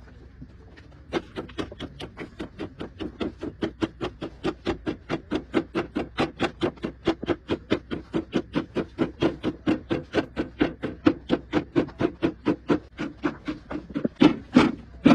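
Rapid, even knocking, about five blows a second, like a hammer or mallet striking over and over, with the hardest blows near the end.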